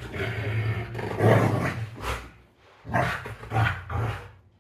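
Dog growling in play over a toy: a low, rough growl held for about two seconds, then three shorter growls near the end.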